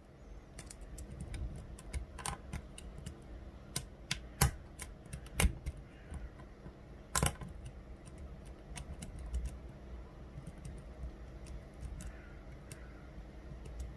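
Lock pick working the pins of an Assa 600 euro cylinder during single-pin picking: a run of irregular light metallic clicks and ticks as the pins are lifted and set, with a few louder clicks among them.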